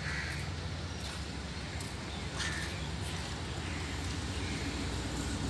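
Low rumble of an approaching train, slowly growing louder, with a few faint bird chirps.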